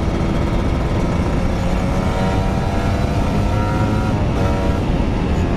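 Sport motorcycle engine running under way, heard from the rider's seat over a heavy low rumble of wind and road. The engine note climbs steadily, dips briefly about four seconds in, then climbs again.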